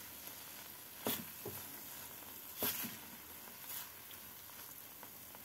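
Silicone spatula stirring and scraping a thick bread-crumb and milk mixture around a frying pan, four short strokes over a faint steady sizzle from the pan.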